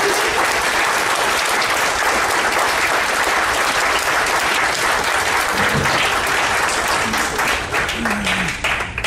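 Audience applauding, a dense steady clatter of many hands that thins into more scattered claps near the end.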